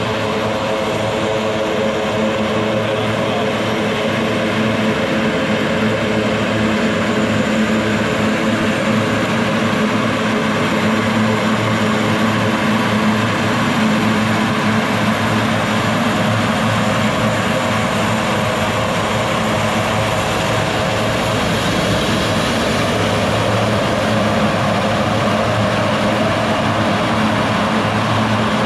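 Let L-410 Turbolet's twin turboprop engines running steadily while the aircraft taxis, a loud, even propeller drone with a low hum.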